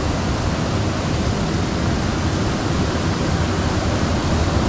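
Steady rushing of flowing water in a small irrigation ditch, an even hiss with no breaks.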